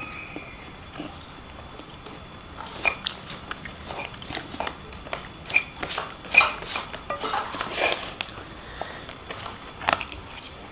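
Someone eating chicken fried rice close to the microphone: chewing with irregular lip smacks and mouth clicks, busiest in the middle.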